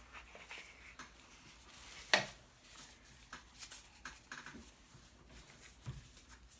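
Cards and their cardboard box being handled: soft rustling and small taps, with one sharp click about two seconds in.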